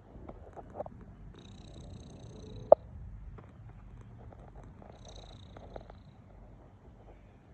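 A sleeping domestic cat snoring: a steady low rumbling breath with a faint high whistle on some breaths. A single sharp click about two and a half seconds in.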